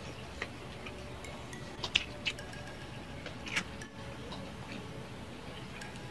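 Pink-dyed salted duck egg shell being cracked and peeled with a metal spoon: a handful of sharp clicks and crackles, the loudest about two seconds in, with a longer crackle past the middle.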